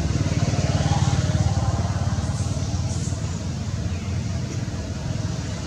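A motor vehicle's engine running, a steady low rumble that swells a little about a second in and eases off again.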